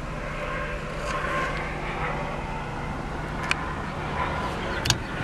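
2011 Chevy Cruze's turbocharged Ecotec four-cylinder idling, heard from inside the cabin as a steady low hum, with two short sharp clicks near the end.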